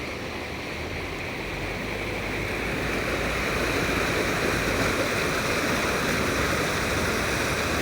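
Floodwater from an overflowing canal rushing past: a steady, even noise of flowing water that grows a little louder about three seconds in.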